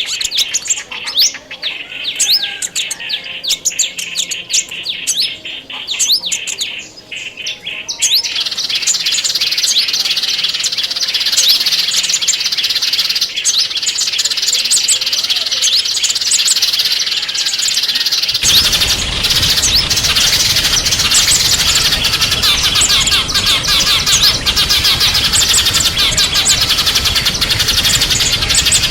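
Small songbirds chirping: separate quick rising chirps at first, then about 8 seconds in a dense chorus of many overlapping chirps takes over. About 18 seconds in, a steady rushing noise joins underneath the chorus.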